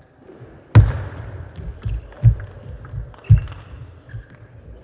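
Table tennis rally: the plastic ball clicking off the table and the rackets at a quick, irregular pace, mixed with several dull thumps, the loudest about a second in.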